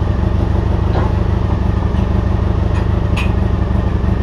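A nearby engine idling steadily, a low even rumble, with a few faint clicks over it, the clearest about three seconds in.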